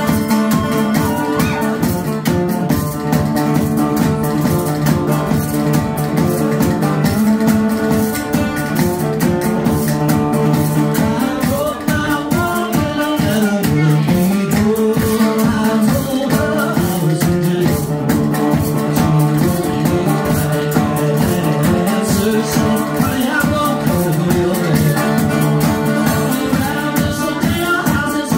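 Live acoustic band music: banjo over a steady bass-drum beat, with other string players.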